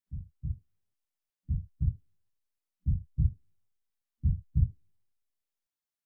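Heartbeat sound effect: four slow double thumps, lub-dub, about a second and a half apart.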